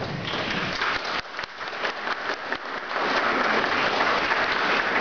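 Audience applauding: many hands clapping, filling out into denser, steadier applause about three seconds in.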